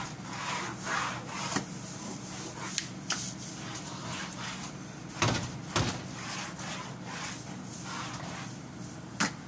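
Broom scrubbing and scraping across the tiled floor under a kitchen counter, with several sharp knocks of the handle against the floor and counter base, the loudest about five seconds in.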